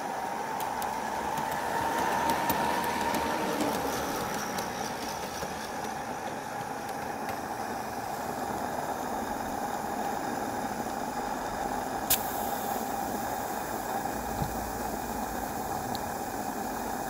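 Live-steam gas-fired model tank locomotive standing in steam, giving a steady hiss from its burner and steam, with faint ticks and one sharp click about twelve seconds in.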